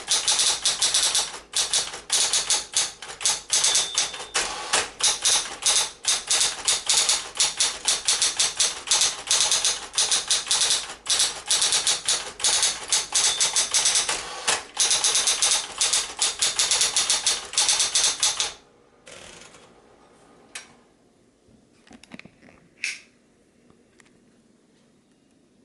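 Smith-Corona Coronet Automatic 12 electric typewriter being typed on quickly and steadily, a fast run of key strikes with short pauses. The typing stops abruptly about three-quarters of the way in, leaving only a few faint clicks.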